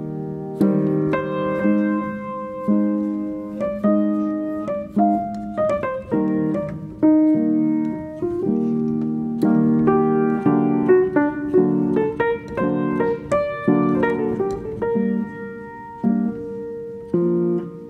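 Background music: a piano playing chords and a melody, each note struck sharply and then fading.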